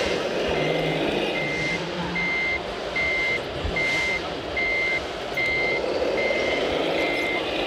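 Reversing alarm of a radio-controlled model truck's sound module: a single high-pitched beep repeating evenly a little over once a second, over a steady background din.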